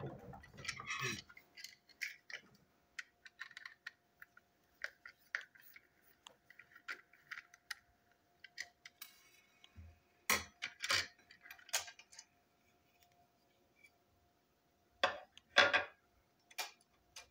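Small toy brake van being pulled apart by hand: light plastic clicks and rattles of its parts, with a few louder knocks as the chassis and van body are set down on the table near the end.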